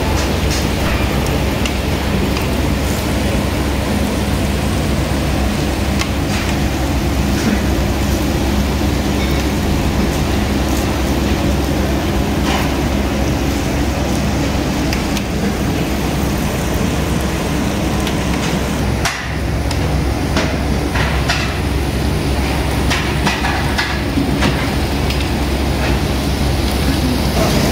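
A steady low hum under a continuous hiss, with scattered clicks and knocks and a short dip about two-thirds of the way through.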